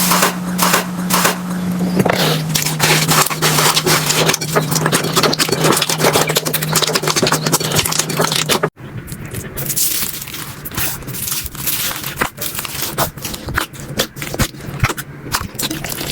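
Slime being squished and pressed by hand, with dense crackling and popping clicks. A low steady hum runs under the first half. About halfway through the sound changes to sparser, sharper pops.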